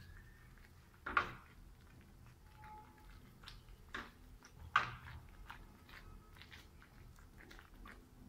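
Silicone spatula stirring thick gravy in a frying pan: soft scrapes and wet squelches, with two louder knocks about one and five seconds in.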